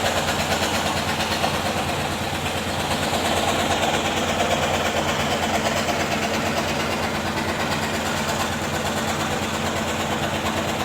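Electric jigsaw machine running, its reciprocating blade cutting through thick wood with a steady, rapid chatter.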